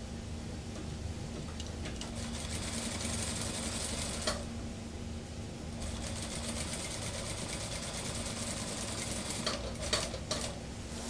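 Industrial lockstitch sewing machine stitching a suit jacket sleeve into the armhole: two runs of fast, steady stitching with a short pause between, then a few sharp clicks near the end as it stops.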